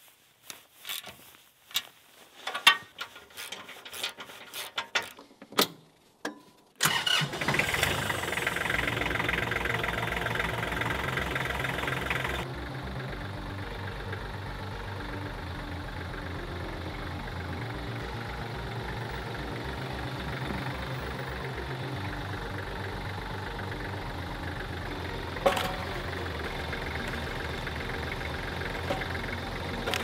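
A few scattered metal clinks and knocks from hand tools, then about seven seconds in an old Kubota tractor's diesel engine starts and runs louder for about five seconds before settling to a steady, quieter idle. A single sharp metal clank sounds near the end.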